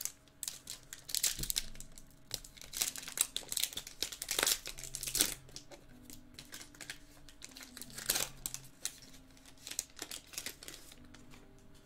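Foil trading-card pack wrapper being torn open and crinkled by hands, a run of irregular sharp crackles.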